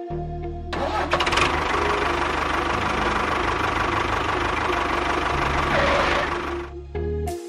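Tractor engine running steadily, starting about a second in and stopping shortly before the end.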